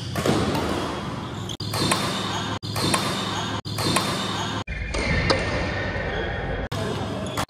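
Badminton rackets striking a shuttlecock in a doubles rally, sharp hits about once a second.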